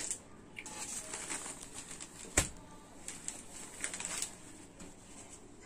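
Cotton saree rustling as it is unfolded and spread flat on a table by hand, with one sharp click a little under halfway through.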